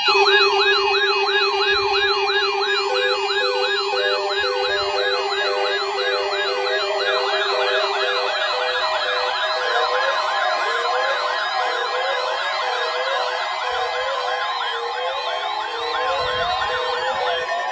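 Several weather alert receivers sounding their alarms at once, set off by the NOAA Weather Radio weekly tone alert test: a loud chorus of overlapping electronic warbling sirens that starts suddenly. Underneath run a steady low tone and a repeating beep; the low tone stops about halfway and the mix of siren patterns shifts.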